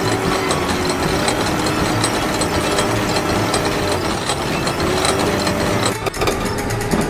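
Crane hoist mechanism sound effect: steady mechanical clicking and grinding as the hoist carries its load, with a short break about six seconds in.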